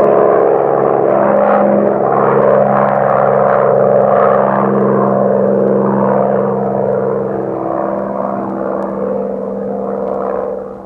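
Propeller-driven World War II bomber flying overhead, its piston engines droning steadily with a wavering, beating tone. The sound slowly fades over the last few seconds.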